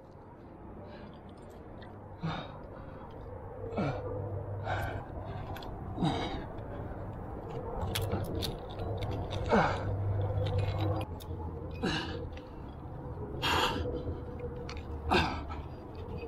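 A rock climber breathing hard, with short gasping exhalations and grunts every one to two seconds, straining on a hard move he cannot commit to. A few sharp clicks fall between the breaths.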